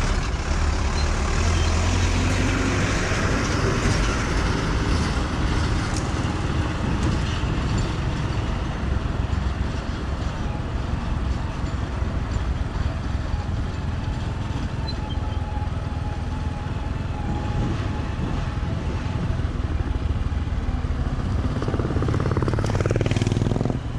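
Motor vehicle noise: a steady low rumble with a broad noisy haze, which does not change much throughout.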